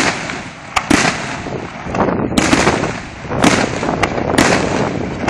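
Aerial fireworks shells bursting in quick succession: sharp bangs roughly a second apart over continuous crackling, the first bang the loudest.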